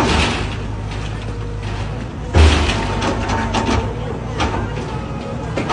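Hydraulic excavator running steadily as its bucket pushes into a rendered masonry fence wall, with a loud crunch about two and a half seconds in followed by scattered cracking and clattering as the wall breaks.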